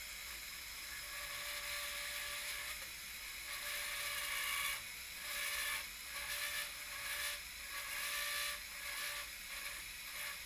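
Synthes Colibri II power drill spinning a 5 mm burr into a plastic model foot bone, cutting a pocket hole for a screw head. The steady high whir swells and eases every second or so as the burr is pressed in.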